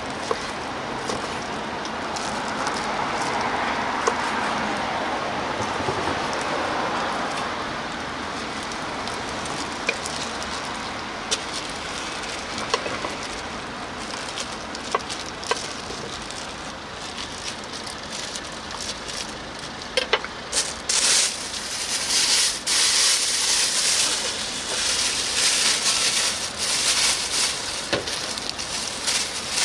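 Food sizzling in a hot pan, over a steady hiss with a few sharp clicks. About twenty seconds in the sizzle turns loud and crackly, swelling and easing unevenly, as when sundae and offal are stir-fried.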